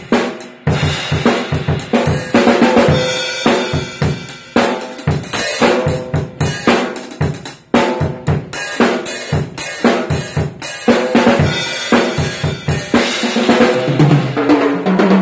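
Drum kit played in a steady groove: a 13×8-inch mahogany block-shell snare drum struck over kick drum, hi-hat and cymbals, with a fill on lower drums near the end.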